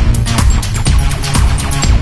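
Background electronic music with a steady beat and a strong bass.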